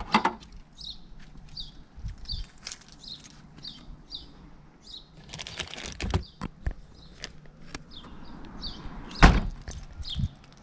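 Dodge Charger trunk being worked: a knock at the start, rustling about halfway through, then a heavy thud about nine seconds in, the loudest sound, as the lid is shut. A bird chirps over and over, about twice a second.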